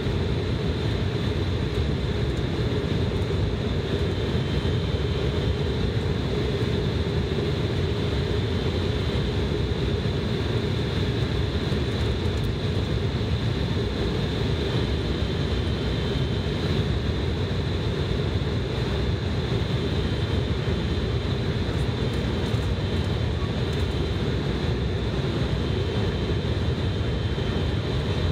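Steady cabin noise inside an Embraer ERJ-175 airliner descending on approach: the drone of its General Electric CF34-8E turbofans mixed with rushing airflow, holding an even level throughout.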